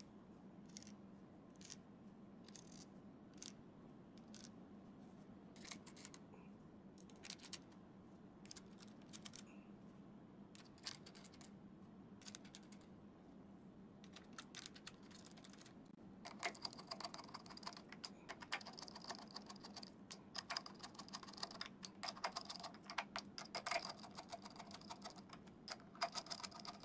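Small metallic clicks and taps of Fender staggered tuning machines being fitted into a wooden guitar headstock. About 16 seconds in the clicking turns into a dense, rapid rattle of small metal parts as the tuners' hex nuts are threaded on and snugged down with a nut driver.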